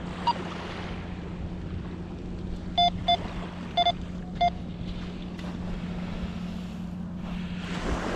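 Minelab GO-FIND 66 metal detector giving four short beeps in quick succession about three seconds in, the tone it sounds over a buried target. Steady wind on the microphone, rising in a gust near the end.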